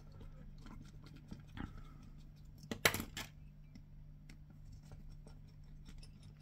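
Small clicks and taps of a Torx screwdriver and tiny machine screws on a wireless body pack transmitter's case, with two sharper metal clinks about three seconds in.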